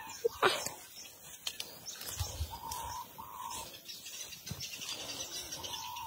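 Birds calling: short, level whistled notes in pairs, about three seconds in and again near the end, with a brief sharp rustle about half a second in.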